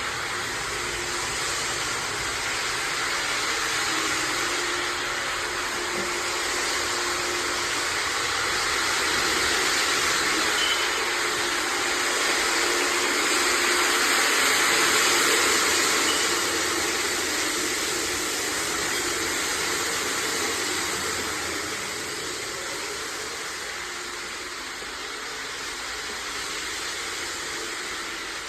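A floor-care machine running steadily, a continuous whooshing hiss over a faint low hum, swelling a little about halfway through and easing toward the end.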